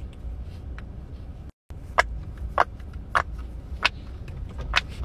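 Silicone pop it fidget toy bubbles being pressed and popping: five sharp pops, about one every half-second, in the second half. A steady low car rumble runs underneath, broken by a brief cut to silence about a second and a half in.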